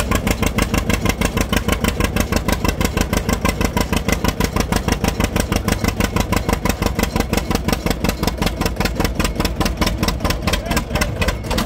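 1943 John Deere B's two-cylinder engine popping at a steady, even beat as the tractor pulls a sled under load.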